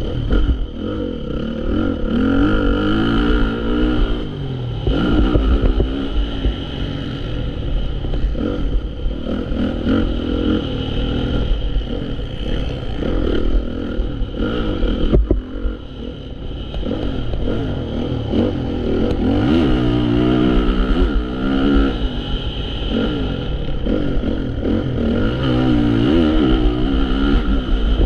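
Honda CRF450 motocross bike's single-cylinder four-stroke engine being ridden hard, revving up and falling back over and over, with a sharp knock about fifteen seconds in.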